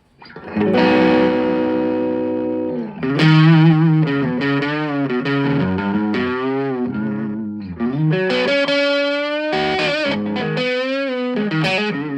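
Electric guitar played through a Fender Bronco amplifier: a chord rung out and held for about two seconds, then single-note lead phrases with wide string bends and vibrato.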